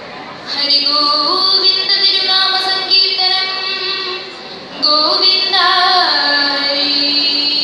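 Girls singing vanchipattu, the Kerala boat song, in two long phrases of held notes with a short break between them.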